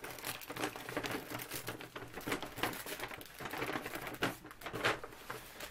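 Plastic shopping bag crinkling and rustling as items are pulled out of it, an irregular run of crackles. It is very noisy.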